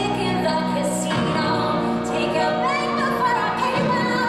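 Live orchestra playing sustained chords, with a woman's voice singing a melody over it, most clearly from about two seconds in.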